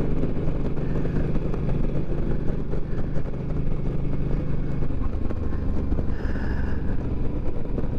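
Suzuki C50's V-twin engine running at road speed, heard from the rider's seat with wind rushing past; its low engine note drops about five seconds in.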